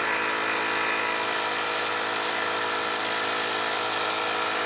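A small electric motor running steadily, giving a constant buzzing hum.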